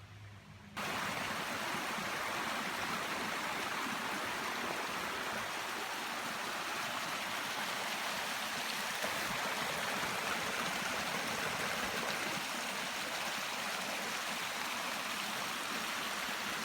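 A forest stream flowing steadily over rocks. It cuts in abruptly about a second in.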